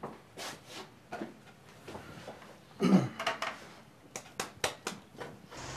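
A man's footsteps and a chair being moved as he sits down at a table, with one louder thump about three seconds in, then a quick run of light taps and scrapes on the tabletop.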